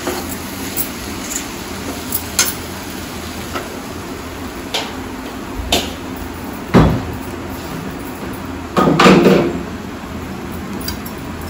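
Steel slotted spatula stirring and scraping sautéing shallots and tomato in a stainless steel kadai, with scattered clicks and knocks against the pan over a steady low hum. A sharp knock comes about seven seconds in, and a louder clatter lasting about half a second comes near nine seconds.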